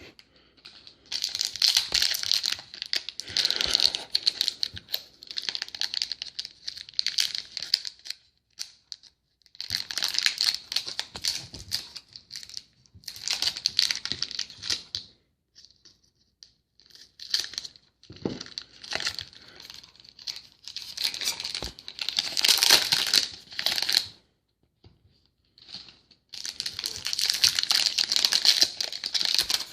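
Trading card pack wrappers being torn open and crinkled by hand, in bursts of a few seconds with short pauses between.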